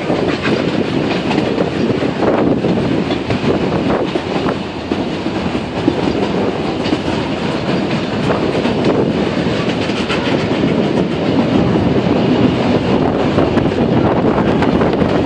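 Puffing Billy narrow-gauge steam train running along the track, heard from aboard an open-sided carriage: a steady rumble of wheels on rails with scattered clicks.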